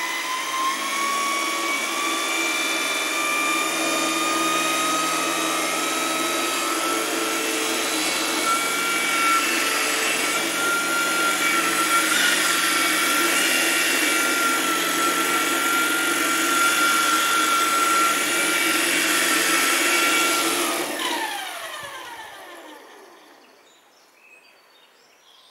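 Electric radio-controlled model's motor, on a 4S battery with a 12-tooth motor pulley, spooling up with a rising whine over the first few seconds. It then holds a steady high whine with a rushing noise, and winds down with falling pitch about 21 seconds in.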